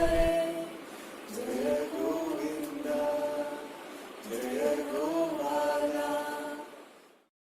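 Slow sung chant with long held, gliding vocal phrases, fading out near the end.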